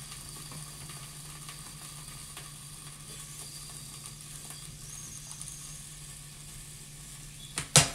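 Steady low hum with a faint hiss from a lit stove burner heating an empty stainless steel pan, and a few sharp clicks near the end.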